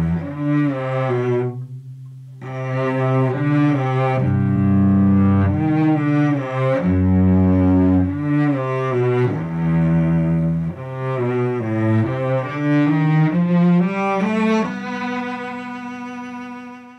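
A recorded cello part playing through a Tube-Tech CL 1A compressor: a bowed line of long held notes, with a short break about two seconds in, tailing off near the end.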